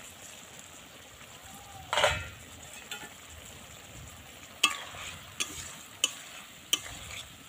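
Spatula stirring boiled potato and seeded-banana pieces in a kadai, knocking against the pan four times about two-thirds of a second apart, over a steady hiss from the hot pot. A louder clatter comes about two seconds in.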